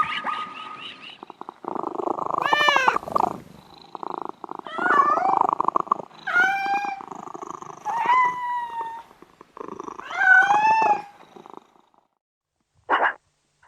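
A cat meowing about five times over a rough, pulsing purr, followed after a short pause by a single sharp bark near the end.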